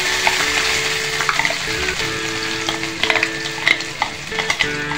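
Chopped ginger sizzling as it is tipped into hot mustard oil and sesame oil in a kadai, a steady frying hiss with scattered sharp crackles.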